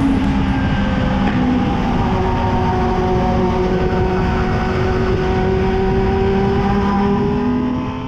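Yamaha FZ6 S2's inline-four engine running steadily at highway speed, with wind rushing over the microphone; its pitch climbs slowly as the bike accelerates. The sound fades out near the end.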